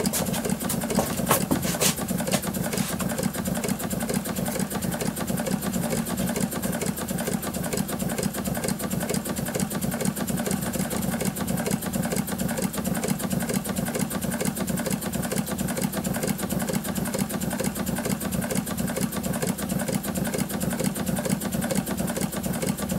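Scratch-built twin-cylinder model paddle-steamer engine running steadily on compressed air, a fast, even beat of air exhaust and clatter from its moving parts. Bob weights on the crankshaft stand in for the paddle wheels and give it a load to turn against so it runs smoothly.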